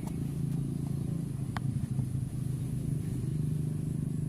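A steady low engine drone with no break.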